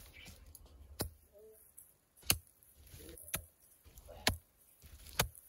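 Hand hoe chopping into the soil: five sharp strikes about a second apart.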